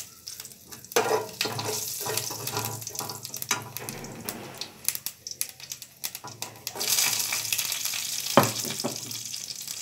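Hot oil sizzling in a wok with whole spices tempering in it, rising about a second in and again near seven seconds as green chillies are dropped into the oil. A single sharp knock near the end.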